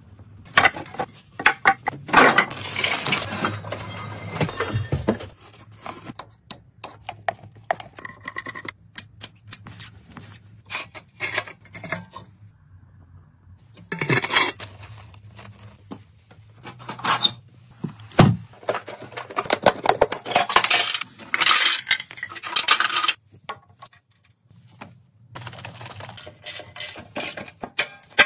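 Hand tools and loose metal parts of a rusty motorcycle clinking and knocking during disassembly, in scattered irregular strikes, with two longer stretches of rasping noise.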